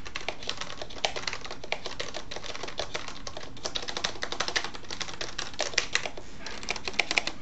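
Typing on an Azio Levetron Mech4 mechanical keyboard with Cherry MX Black switches: a fast, irregular run of key clacks, heard from a little way off, stopping just before the end.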